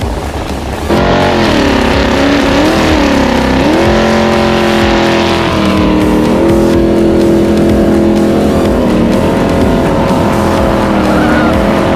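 An engine starts running hard about a second in, its pitch wavering and then rising and settling in steps.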